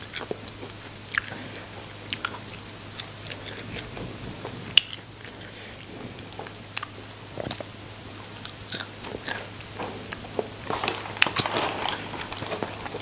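Close-miked chewing and biting of crispy deep-fried small fish with roe, with scattered sharp crunches. The crunching gets denser about eleven seconds in. A faint steady low hum runs underneath.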